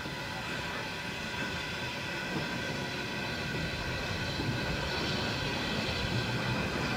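Small steam shunting locomotive, a Peckett 0-4-0 saddle tank, moving wagons slowly along the yard track: a steady rolling rumble with some steady higher tones, growing slightly louder towards the end.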